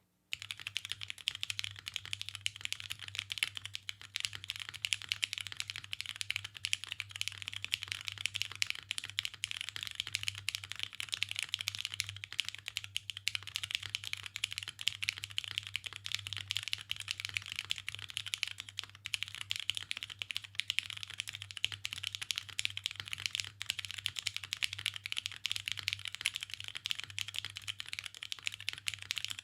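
Steady, fast typing on a custom mechanical keyboard with lubed Cherry MX Brown tactile switches on a carbon fiber plate, float-mounted with no dampening foam, under GMK keycaps. Dense keystroke clicks begin about half a second in.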